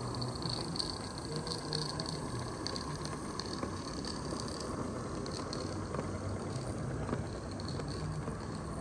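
Live-steam model locomotive running with a train of coal wagons: a steady hiss of steam over the rolling of wheels on the track, with a few light ticks.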